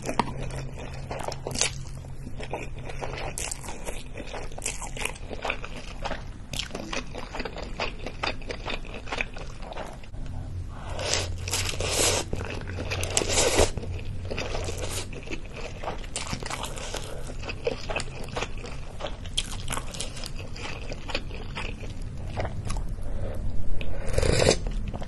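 Close-miked eating of spicy cup ramen: noodles slurped in and chewed, with many wet mouth clicks. Longer, louder slurps come about eleven to fourteen seconds in, and a loud sip of broth from a spoon near the end.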